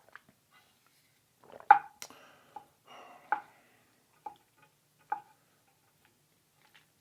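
Utensil clinking and tapping against a dish as food is handled: five sharp knocks with a short ring, the loudest about two seconds in, and a brief scrape around three seconds in.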